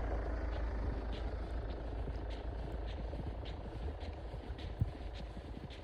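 Steady low rumble of a running vehicle, with faint light ticks about twice a second.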